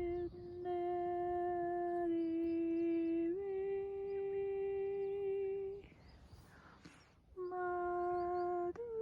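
A voice humming long, steady held notes that step slightly up and down in pitch, with a short pause and a breath about six seconds in before the humming resumes.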